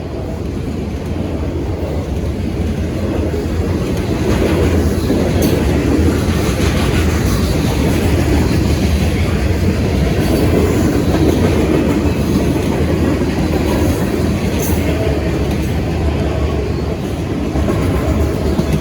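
Freight train rolling past: a loud, steady rumble of wheels on the rails with clickety-clack, building up over the first few seconds. There are a couple of sharp metallic clicks.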